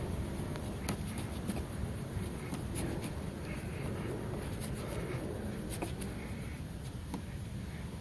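A cloth rubbed back and forth on car paint under a door handle, a steady scrubbing hiss with a few faint clicks, as compound polishes out light fingernail scratches.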